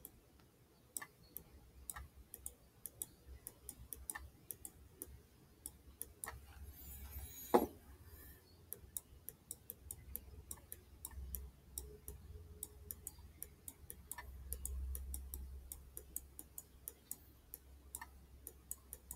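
Faint, irregular ticks and taps of a stylus tip on a tablet screen during handwriting, several a second, with one louder click about seven and a half seconds in. A low hum runs underneath.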